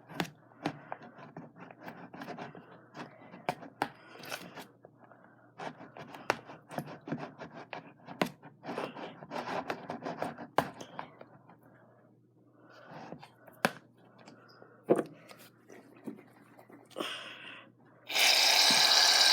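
Stirring slime in a bowl: repeated scrapes and clicks of the mixing utensil against the bowl, with a brief pause about two-thirds of the way through. Near the end a loud, steady hiss starts as a shaving cream aerosol can sprays into the bowl.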